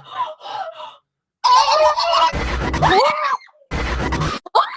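Horror jump-scare sound effect: a distorted, shrieking voice over deep booming hits, cut with a sudden silence about a second in, with screaming rising near the end.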